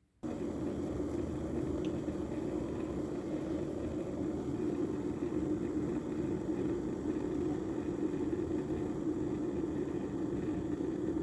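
Electric kettle heating water toward the boil: a steady rumbling hiss that starts suddenly and holds even.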